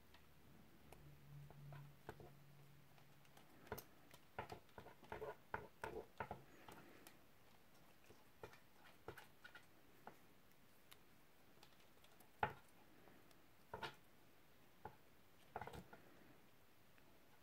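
Faint, scattered clicks and taps of silver-plated copper wire and small hand tools being handled while wrapping wire: a quick cluster about four seconds in, then a few single clicks, the sharpest about twelve seconds in.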